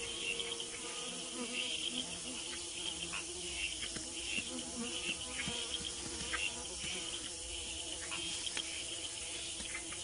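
Tropical rainforest insects chirping and buzzing in a dense, steady chorus.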